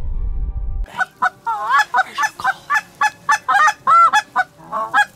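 Hand-blown Canada goose call: a rapid run of a dozen or so sharp honks and clucks, many breaking from a low note to a high one, starting about a second in after a low rumble.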